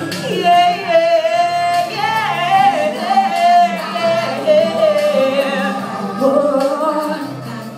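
A woman singing an R&B ballad live, a long held and bending vocal run with no clear words, over a backing track.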